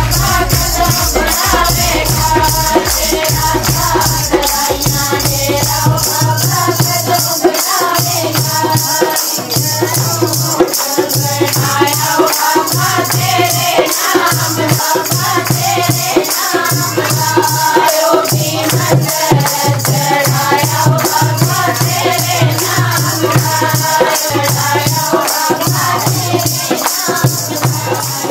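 Women singing a Pahadi devotional bhajan in chorus to a dholki barrel drum and the steady rhythmic jingling of a chimta, metal tongs fitted with small cymbal jingles.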